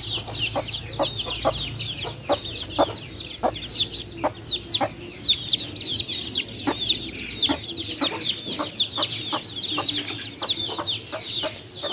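A flock of chickens: many high, falling peeps overlapping without pause, with short clucks about twice a second.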